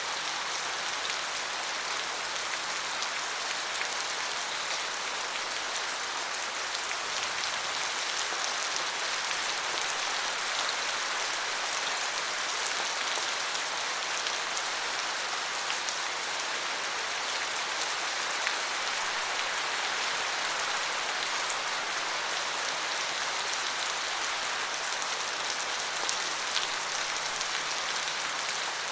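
Steady rain falling on a surface: an even hiss of many drops with scattered small drip ticks.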